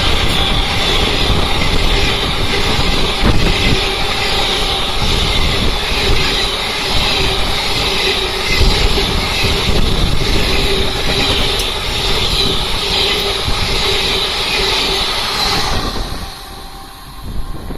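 Express train's coaches running past at speed, a loud continuous rumble and rattle of wheels on the rails that drops away suddenly about sixteen seconds in as the train clears.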